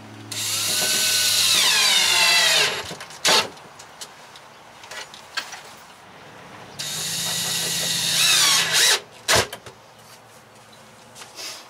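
Cordless drill/driver driving screws into wood in two runs of about two seconds each, the motor's pitch dropping as each screw tightens. Each run is followed by a sharp knock.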